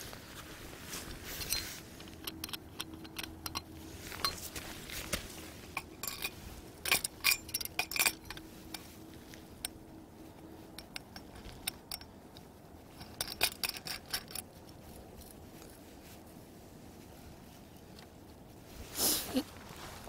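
Metal clinks and rattles from a multi-rod fishing rod-holder stand as its frame and rod rests are handled and adjusted, in irregular clusters of sharp clicks. Near the end a short, louder whoosh with a falling pitch.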